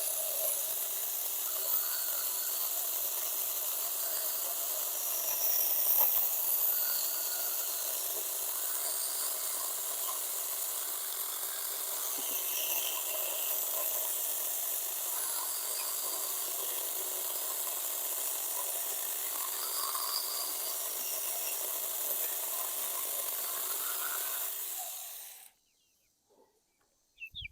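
Saker mini electric chainsaw cutting through a pecan limb, a steady rasping run that stops abruptly near the end.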